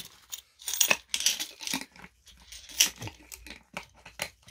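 Hands handling 500-won coins and clear plastic coin tubes: scattered short clicks and brief rustling scrapes.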